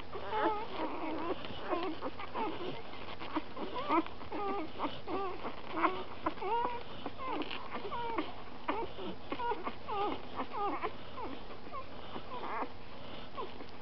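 Three-day-old Eurasier × Samoyed puppies whimpering and squeaking at their mother's teats: a steady stream of short, high, wavering cries that stops near the end.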